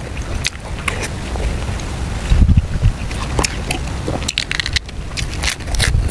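Close-up wet chewing and lip smacks of a person eating soft stewed pork, over a low rumble of wind on the microphone.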